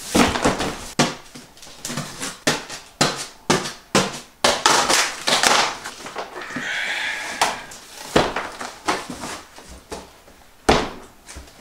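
Cardboard shipping box being torn open and handled: a series of sharp rips, rustles and knocks as the flaps are pulled apart and the boxed blender inside is lifted out. A brief squeak comes about halfway through as cardboard slides against cardboard.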